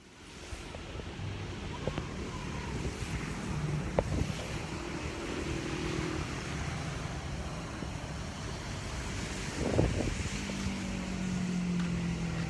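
Road traffic passing below on wet pavement: a steady rush of tyres and engines. A few short knocks are heard, and a vehicle's low engine drone comes in near the end.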